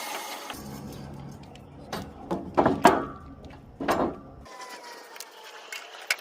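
A few sharp knocks and clunks over a low hum, which stops about two-thirds of the way through.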